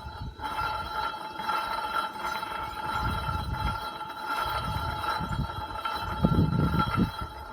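2001 Sea-Doo jet pump running with a steady high-pitched whine made of two ringing tones, over an uneven low rumble. It is really loud and a worrying sign of a fault inside the pump, which has play in its shaft and nicked impeller blades.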